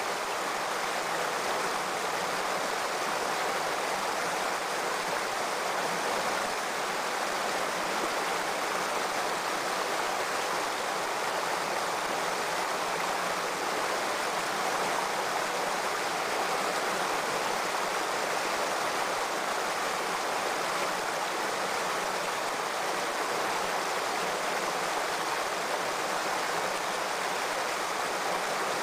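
Shallow stream running over and between rocks, a steady, even rush of water.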